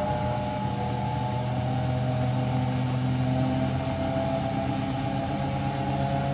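Beko washing machine spinning at high speed in its final spin: a steady motor hum and drum rumble under a high whine that climbs slowly in pitch as the drum speeds up.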